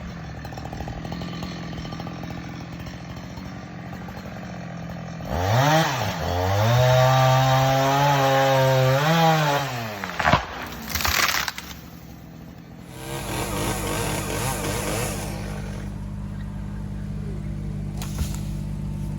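Gas chainsaw idling, then revved up and held at high speed for a cut of about four seconds before dropping back. From about two-thirds of the way through, a steadier, lower engine drone takes over.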